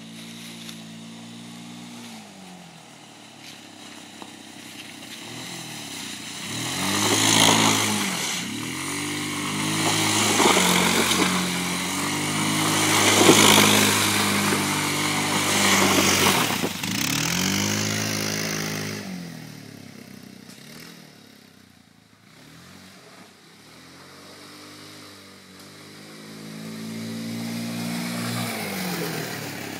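Kymco 150 cc quad's engine revving up and down as the ATV is ridden off-road. It grows loud as the quad passes close by around the middle, fades as it pulls away, and climbs again near the end.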